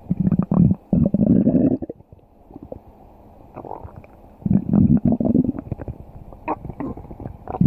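Stomach growling and gurgling: a long, loud rumble through the first two seconds, another about four and a half seconds in, and a third starting at the very end, with small scattered gurgles between.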